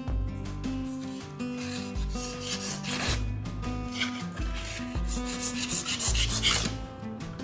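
A knife blade scraping against an abrasive surface in a few strokes as it is sharpened, over background music with a steady bass line.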